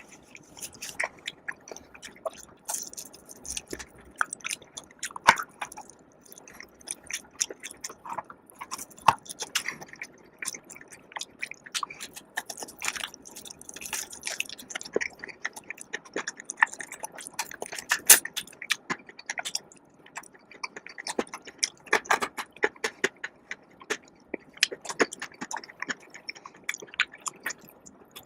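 Close-miked chewing and biting of food, heard as many sharp, irregular clicks and mouth sounds.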